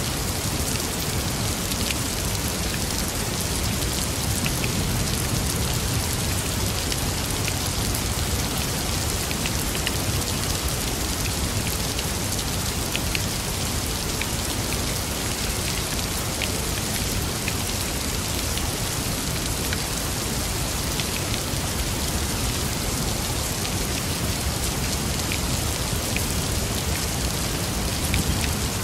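Steady rain falling: an even hiss with many small drop ticks throughout.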